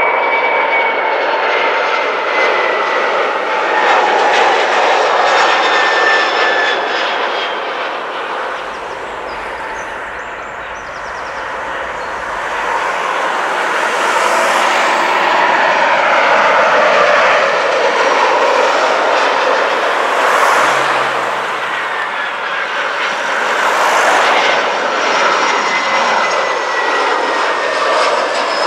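Jet airliners on final approach to land passing low overhead one after another (Airbus A320, Boeing 737, Airbus A319): a steady jet-engine roar with thin engine whines sliding down in pitch. The roar eases about a third of the way through, then builds again for the next aircraft.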